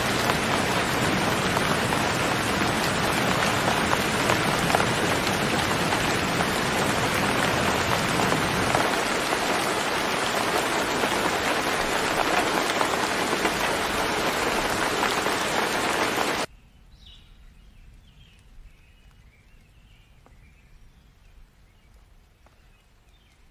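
Steady rain falling, a dense even hiss, which cuts off abruptly about sixteen seconds in. After that only a few faint high chirps remain.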